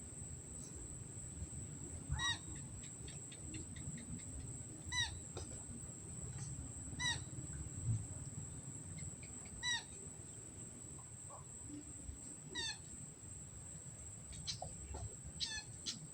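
A small animal's short, squeaky call, repeated five times about every two to three seconds, which the angler takes for a rat. Under it runs a steady high-pitched whine, and a few quick squeaks come near the end.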